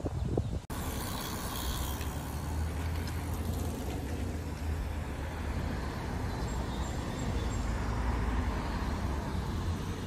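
Road traffic: a car driving past close by, its engine and tyres over a steady low rumble. The sound starts abruptly less than a second in.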